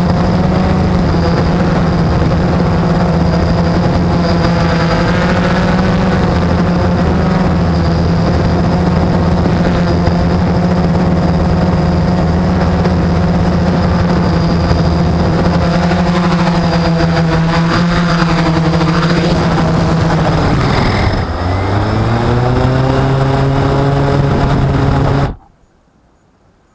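Blade 350 QX quadcopter's electric motors and propellers droning steadily, the pitch wavering as the throttle shifts. About 21 seconds in the pitch dips and settles lower, and about 25 seconds in the sound stops abruptly.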